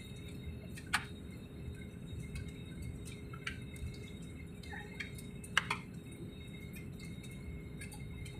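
Airbus airliner cabin noise as the plane rolls along the runway after touchdown: a steady low rumble with a faint constant hum, broken by a few sharp clicks and rattles.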